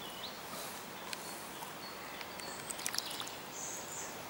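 Mute swan feeding with its head underwater: faint water sloshing and a few light clicks over a steady outdoor background noise.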